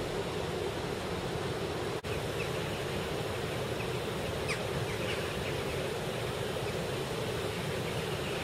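Steady rushing of a mill stream's flowing water, with a few faint bird chirps after about two seconds.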